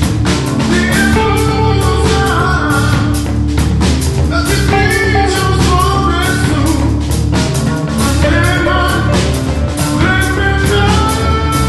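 A rock band playing live in rehearsal: electric bass, a drum kit with cymbals and guitar, with a voice singing over them.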